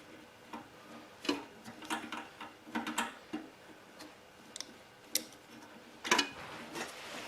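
Irregular metallic clicks and clinks of hand tools and small parts as the carburetor is worked off a small engine.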